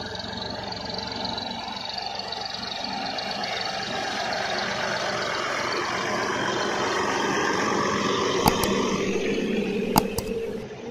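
Massey Ferguson 350 tractor's three-cylinder diesel engine running steadily as it pulls a loaded straw trolley, growing louder as it comes close and passes. Near the end there are a couple of sharp knocks.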